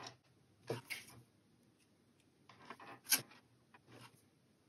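Faint clicks and light scrapes of small LED bulbs, alligator clips and a marker being handled on a wooden workbench. The sharpest click comes about three seconds in.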